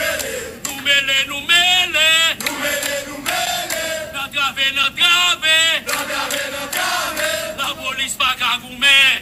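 A man's voice chanting in short, loud, shouted phrases, its pitch wavering up and down.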